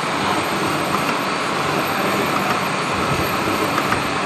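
Metal-cutting machine tool running steadily while cutting a cast-iron helical gear: a dense, even machining noise with a few faint ticks.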